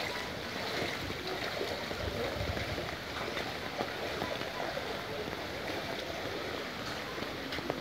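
Muddy floodwater flowing through a flooded lane: a steady rush of moving water.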